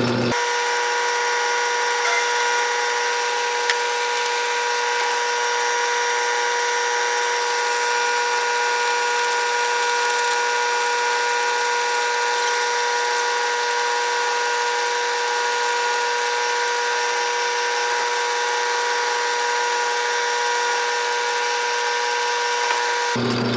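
Metal lathe running and cutting a bronze workpiece: a loud, steady, high-pitched whine over a hiss, with two held tones.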